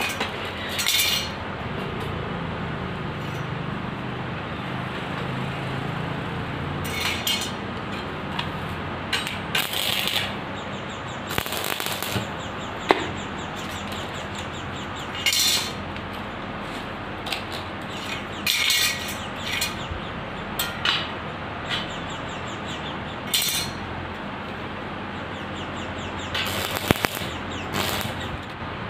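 Stick (arc) welding tack welds on an iron square-pipe frame: about ten short bursts of crackling sizzle, each a fraction of a second to about a second long, over a steady background hiss, with a couple of sharp metallic clicks.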